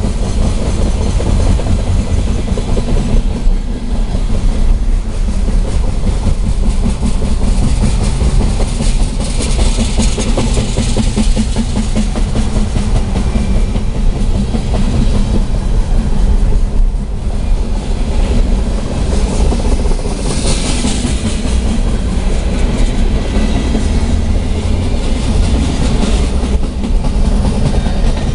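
CSX Tropicana freight train of refrigerated boxcars rolling past at close range, a steady loud rumble of steel wheels on the rails, heard from a car pacing alongside it.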